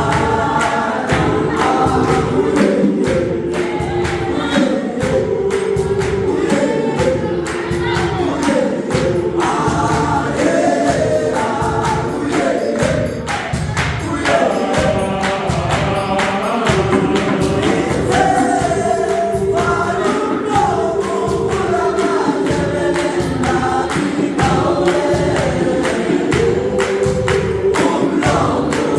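Gospel choir singing in harmony over a steady, rhythmic beat of sharp strikes.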